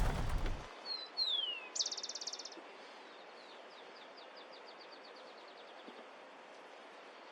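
A loud rush of noise cuts off suddenly under a second in. A small bird then sings: two falling whistles, a fast buzzy trill, and a trailing series of high notes that slows and fades, over a faint outdoor background.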